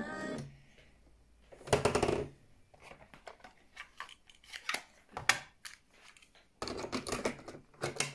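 Mechanical clicks and clunks from the cassette deck of a Unitra Kasprzak RM 222 radio-cassette recorder. Radio music cuts off just as a top key is pressed, and a louder clunk about two seconds in comes as the cassette door opens. Scattered handling clicks follow, then a burst of rattling and clicks near the end as a cassette is pushed in and the door is snapped shut.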